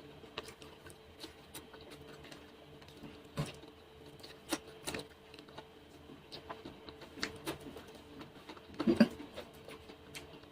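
Quiet, close-miked chewing of fried sweet potato: scattered soft mouth clicks and smacks, over a faint steady hum. A short hummed 'hmm' comes about nine seconds in.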